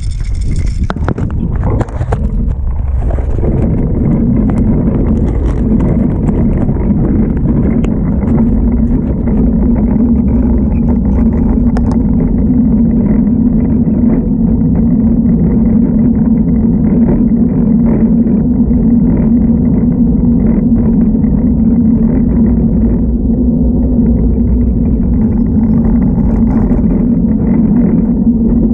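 Riding noise from a bicycle moving along a paved street: a steady low rush, with a constant low hum setting in about three seconds in.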